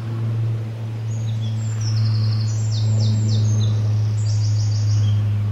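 A songbird singing several runs of quick, high chirping notes, over a loud, steady low hum.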